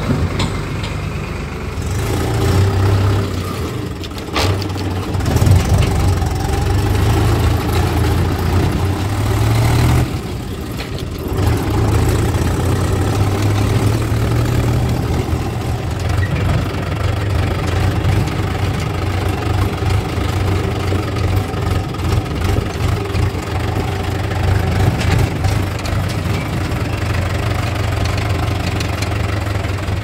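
Tractor diesel engine running steadily close up, a low drone, with a brief dip about ten seconds in.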